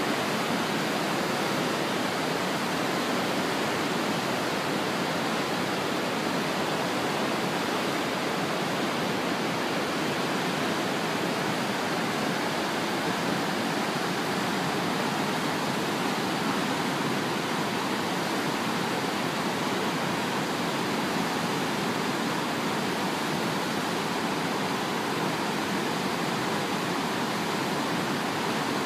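Kootenai Falls, the Kootenai River's waterfall and whitewater rapids, rushing in a steady, unbroken wash of white-water noise.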